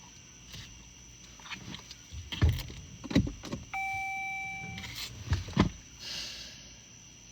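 A few dull thumps and knocks from handling in and around a car, with a steady electronic beep lasting about a second in the middle.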